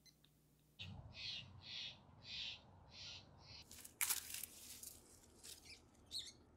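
A bird calling in short, harsh notes, about two a second, for a few seconds; then a loud rustle of tomato leaves and stems as a ripe tomato is grasped on the vine, and a brief chirp near the end.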